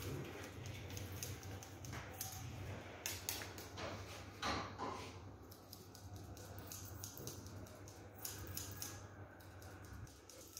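Hair-cutting scissors snipping a child's hair in quick, irregular snips, over a low steady hum.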